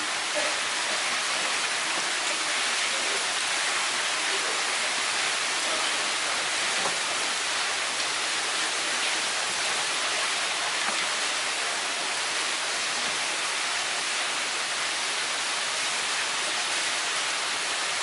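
Steady rush of running water, even and unbroken.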